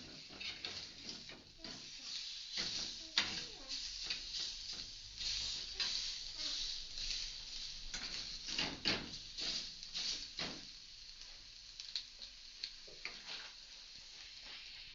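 Bacon sizzling as it fries in a pan with a little oil, with scattered clicks and knocks through the frying.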